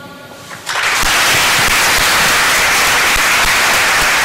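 Audience clapping, breaking out suddenly under a second in and going on steadily and loud, as a recited poem ends.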